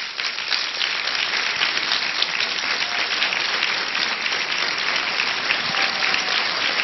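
A large audience applauding steadily, a dense continuous patter of many hands clapping.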